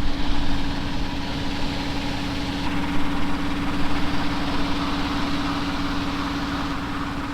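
An engine running steadily at idle, a constant droning hum.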